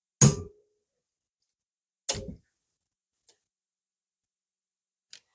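Two sharp metal clanks about two seconds apart, the first the louder, from a C-clamp valve spring compressor being worked and released on a Harley-Davidson Sportster cylinder head while the valve keepers go in. A faint tick and a small click follow near the end.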